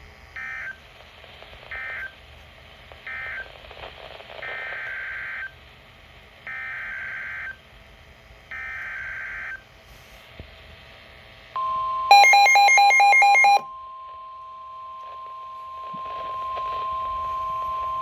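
NOAA Weather Radio SAME data signal: three short bursts of warbling data tones close out the marine warning, then three longer, about one-second bursts form the header of the next warning. The steady 1050 Hz weather radio alert tone then starts, with a loud pulsing electronic beeping over its first second and a half.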